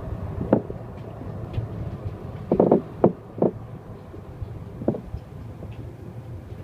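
Cab interior of a 1984 Siemens U2 light rail vehicle under way: a steady low rumble with a loose cab door knocking and rattling in its frame. There is a quick cluster of knocks about two and a half seconds in, with single knocks before and after it.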